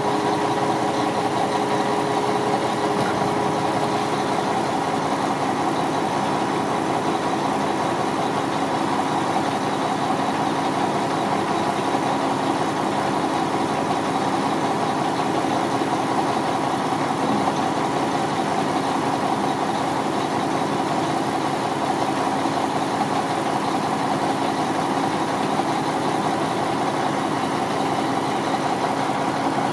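Diesel engine of a 2007 Mack CV713 winch truck idling steadily, with a steady hum over it that steps down in pitch about four seconds in.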